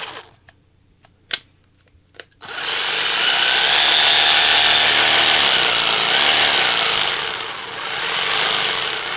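Parkside 20 V cordless jigsaw/sabre saw running unloaded in the air, its motor building up as the speed selector is turned up. A couple of small clicks come first, and the saw starts about two and a half seconds in. Its level dips briefly and comes back up near the end.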